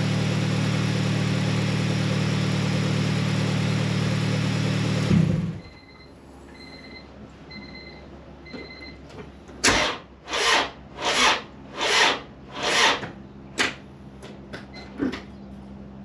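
G23 VTEC swap engine idling hot, then switched off about five seconds in; a warning chime beeps four times. From about ten seconds the starter turns the hot engine over slowly and laboriously, six heavy strokes about 0.8 s apart, and it does not start: the hard hot crank that the owner puts down to binding or a weak starter.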